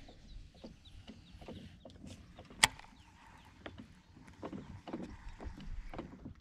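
Light irregular clicks and knocks of a fishing rod and reel handled just after a cast, with one sharp click about two and a half seconds in.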